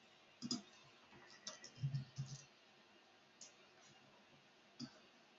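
Faint clicks of a computer mouse and keyboard: about eight separate, irregular clicks and keystrokes as a file is renamed.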